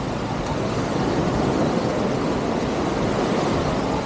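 Steady rush of surf washing up the beach, mixed with wind buffeting the microphone, swelling a little in the middle.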